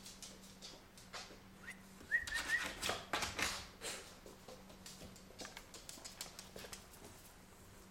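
Chocolate Labrador puppy letting out three or four short, high whimpers about two seconds in, among light clicks and scuffs of claws on a hardwood floor.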